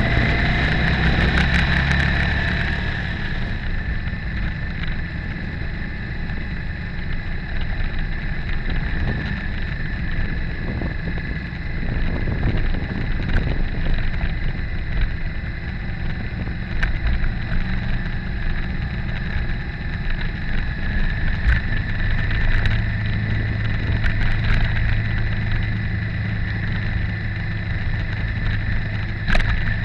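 Motorcycle engine running steadily at low speed along an unpaved track, with wind noise and scattered short ticks from the gravel surface.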